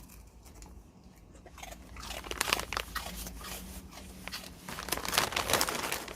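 Small dog crunching and chewing puffed shrimp crackers (Saewookkang), a quick run of sharp crunches starting about two seconds in after a quieter start.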